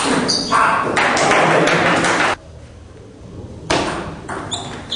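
Table tennis ball being hit back and forth with paddles and bouncing on the table in a rally, sharp pings and taps in a hall. A loud stretch of noise fills the first two seconds, then it goes quiet for over a second before the hits start again.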